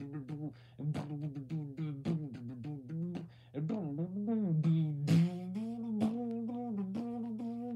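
A person's voice making rhythmic clicking mouth sounds over a hummed tone that slides up and down, settling into a steadier held hum about five seconds in.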